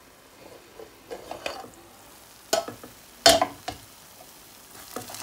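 A metal lid is lifted off a non-stick frying pan of couscous and vegetables: light clatters, then a sharp metallic clank about three seconds in. Near the end a wooden spatula starts scraping and stirring in the pan.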